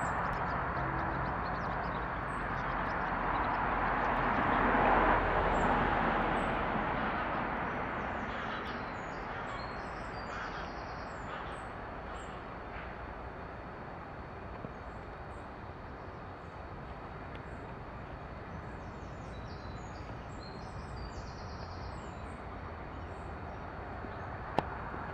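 Distant vehicle passing: a broad rushing sound that swells to a peak about five seconds in and then slowly dies away into a steady low background.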